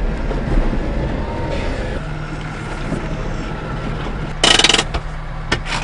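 Suzuki Carry DD51T mini dump truck's small three-cylinder engine running as the truck drives slowly over rough ground, heard from inside the cab. About four and a half seconds in there is a brief loud rattle, followed by a couple of sharp clicks near the end.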